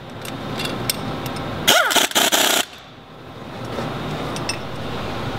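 A power driver runs in one short burst of just under a second, about two seconds in, its pitch rising as it spins up, running down the nuts that clamp the two brake stator halves together. Steady background noise fills the rest and grows a little louder after the burst.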